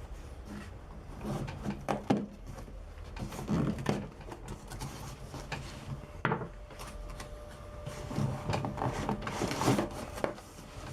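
A padded guitar bag being opened and its packing handled: scattered knocks and clicks with bursts of rustling, heaviest near the end.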